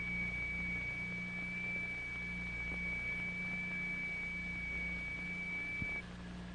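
Steady high-pitched electronic test tone driving a vibration experiment, with a lower hum beneath it that throbs slowly in level, the beat of two nearly matching notes. The high tone cuts off suddenly about six seconds in, just after a small click.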